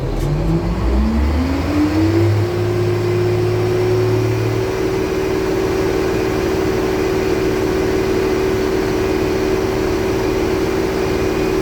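K-700 tractor's MAN diesel engine revving up over about two seconds, then held steady at full throttle and high revs.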